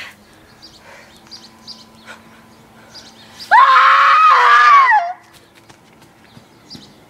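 A girl screams once, loud and high-pitched, for about a second and a half starting about three and a half seconds in, rising sharply, held, then dropping away at the end.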